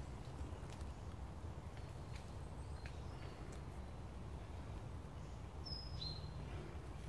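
Quiet woodland ambience: a steady low rumble with a few faint ticks, and one short bird chirp that drops in pitch about six seconds in.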